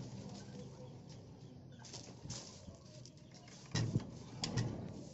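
Wooden boards of a slatted goat pen knocking and clattering as they are handled to free a trapped goat. There are a few sharp knocks about two seconds in and a heavier thump with more knocks a little before four seconds.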